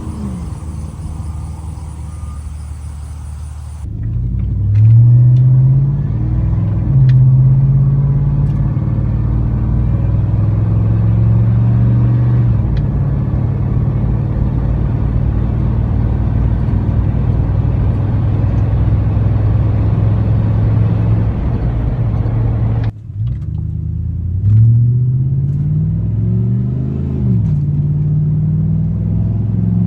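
Exhaust of a 5.3-litre LM7 V8 pickup truck with a single-chamber performance muffler, accelerating through the gears: the pitch climbs and drops at each shift, then settles into a steady cruising drone. The recording cuts abruptly about four seconds in and again near twenty-three seconds, and another run of gear-by-gear accelerations follows the second cut.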